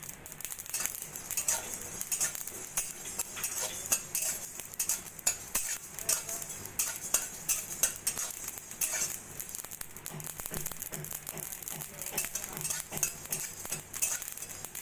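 Metal spatula scraping and clicking on a dry metal kadai while whole mustard, fennel and panch phoron seeds are stirred and dry-roasted, the seeds skittering across the hot pan. The strokes come irregularly and quickly throughout.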